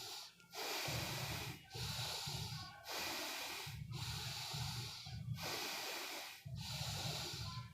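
Bhastrika pranayama: a person breathing forcefully in and out through the nose in a steady rhythm, each breath about a second long with a brief gap between.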